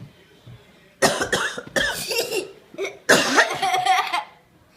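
A woman coughing in several loud bursts starting about a second in, followed by a child's laughter.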